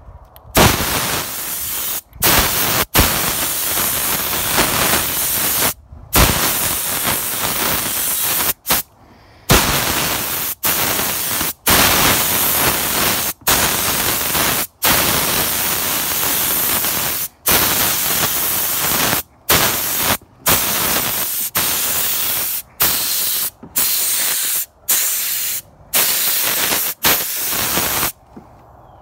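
Paint spray gun hissing as it sprays paint in runs of one to several seconds, cutting out briefly more than a dozen times between passes.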